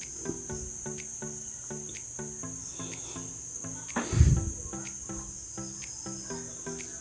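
Steady high chirring of crickets over soft background music with a regular run of short notes. About four seconds in, a brief thump from hands working the new plastic ball cock and float arm in the cistern.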